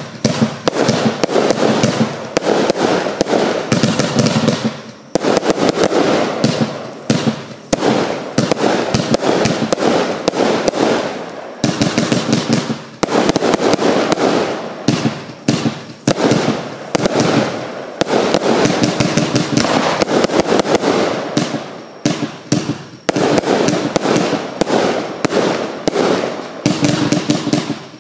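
Lesli Shred It Showbox, a 288-shot double compound firework cake, firing in rapid succession: a dense, unbroken run of launch thumps and bursting shell reports. Short lulls come about five, twelve and twenty-two seconds in.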